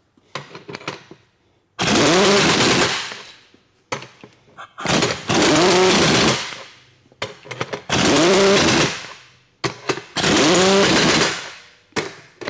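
Chicago Pneumatic CP7774 1-inch-drive pneumatic impact wrench hammering in four bursts of about two seconds each, with short trigger blips between them, each burst dying away as the trigger is released.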